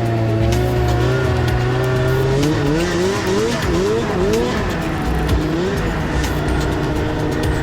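Snowmobile engine running, then revved in a quick series of rising blips before settling back to a steady note, over background music.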